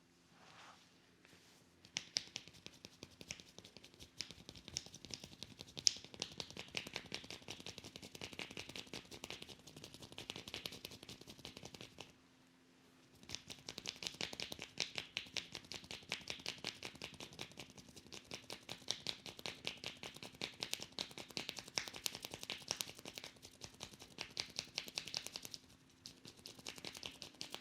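Head massage: hands working fast over hair and scalp, giving a rapid run of crisp, scratchy ticks. The ticks come in two long stretches, broken by a pause of about a second roughly twelve seconds in, and stop shortly before the end.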